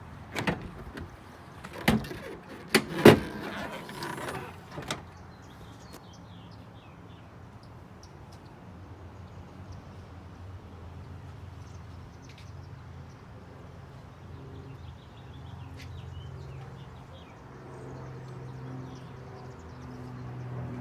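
Car door being handled: a handful of clunks and knocks over the first five seconds, the loudest about three seconds in, followed by a faint low steady hum.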